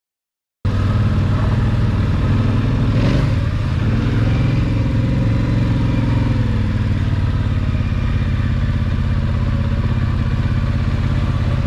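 ATV engine running steadily as the quad rides along, cutting in suddenly just after the start, with a brief change in revs about three seconds in.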